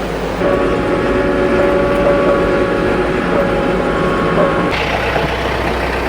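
A vehicle engine running steadily. Its hum changes about half a second in and again near five seconds in.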